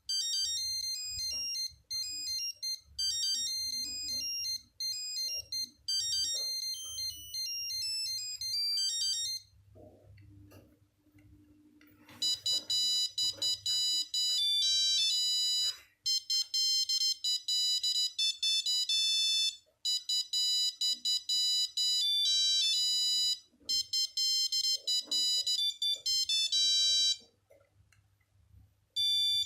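Nokia 8210 monophonic ringtones: thin, beeping electronic melodies played one after another, with short pauses between tunes.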